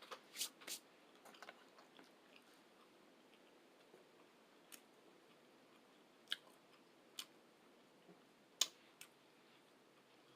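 Eating sounds, mostly quiet: a quick run of sharp clicks in the first second, then single clicks every second or two.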